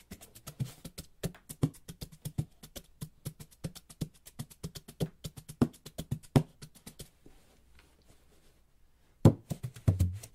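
Hand drumming with a brush tipper: a quick, dense run of light taps that thins out and pauses briefly, then resumes with louder, deeper strokes about nine seconds in.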